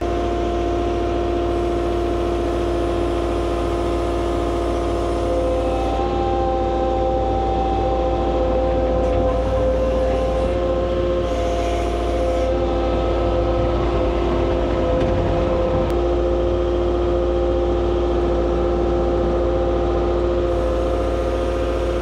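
Kato compact track loader's diesel engine running steadily with a constant whine over it, as the loader works its pallet forks among cedar logs. The pitch steps up slightly about six seconds in.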